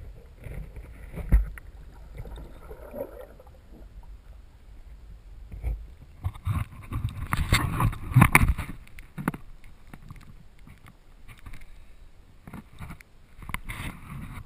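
Swimming splashes and water sloshing around a GoPro in its waterproof housing at the surface, muffled through the housing. There is a sharp knock about a second in and a louder run of splashes around the middle.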